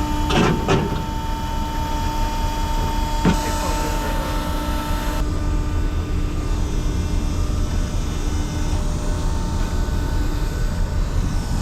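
An engine running steadily, with a few short knocks about half a second in and about three seconds in.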